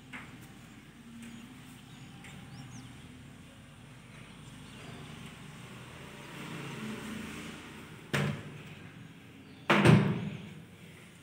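A door being pushed open: a sharp knock about eight seconds in, then a louder bang with a short rattle about a second and a half later.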